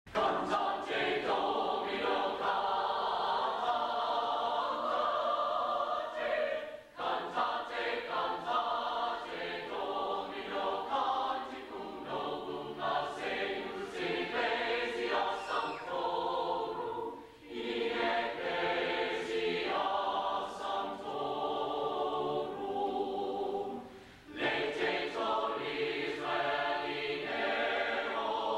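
Large mixed choir of men and women singing, with short breaks between phrases about 7, 17 and 24 seconds in.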